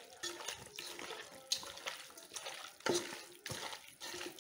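Bare hand squeezing and turning raw pork pieces in a metal pot to rub in the salt and spice marinade: irregular wet squelching of the meat, with a few sharper slaps about one and a half and three seconds in.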